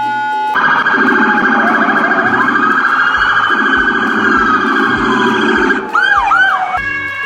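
Electronic police siren running through its patterns: a steady tone, then a loud harsh blare for about five seconds, two short whoops near the end, and a new steady tone.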